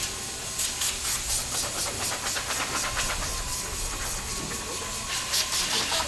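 Compressed-air blow gun hissing in rapid short blasts, blowing dust off air-conditioner casings, over a steady factory hum.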